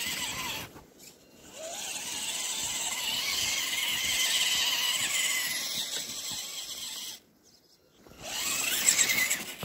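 RC crawler's electric motor and geartrain whining under throttle as its wheels spin for grip on wet snow, stopping twice when the throttle is let off and climbing in pitch as it starts again.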